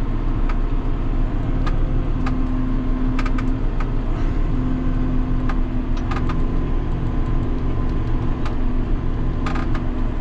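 John Deere 6930 tractor's six-cylinder diesel running steadily under field load, heard from inside the cab. Short knocks and rattles come through now and then, with a few close together near the end.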